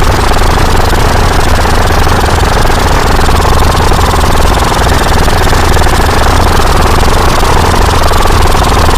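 Loud, continuous mechanical rumble and rattle with a fast, even flutter, holding steady throughout.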